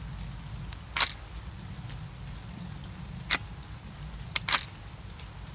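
Nikon D90 DSLR firing a self-timed shot in exposure delay mode, giving a few sharp mechanical clicks. There is one click about a second in and another a little after three seconds, when the mirror flips up. About a second later comes a quick double click as the shutter fires and the mirror drops back.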